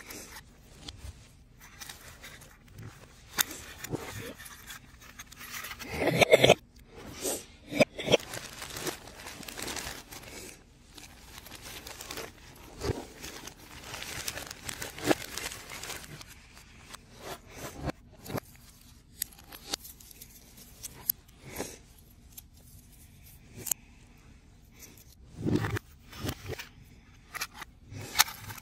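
Pieces of a 3D puzzle being handled, pressed out and fitted together by hand: irregular small clicks, taps and short scraping sounds, with the loudest cluster about six seconds in.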